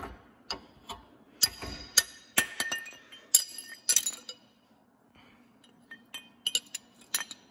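Sharp metal-on-metal strikes that ring, about seven hard ones in the first four seconds, then lighter clinks and taps: working at a seized, rusted rear lower shock mount.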